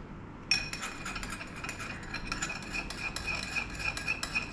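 A metal spoon stirring thick sauce in a small ceramic bowl, clinking quickly and repeatedly against the sides with a light ringing tone. The stirring starts about half a second in.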